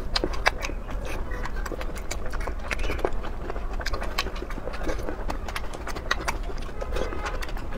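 Close-miked chewing of a soft fish ball: wet mouth smacks and a quick, irregular run of sharp clicks, over a steady low hum.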